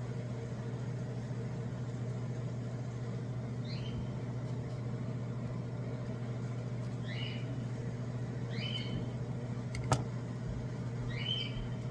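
Steady low hum of a running appliance, with four short high rising chirps spread through it and a single sharp click about ten seconds in.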